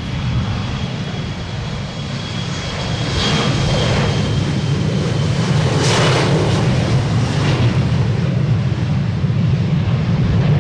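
Embraer E-Jet regional jet's turbofan engines running, a steady low rumble with a thin high whine on top, swelling as the aircraft passes and loudest about six seconds in.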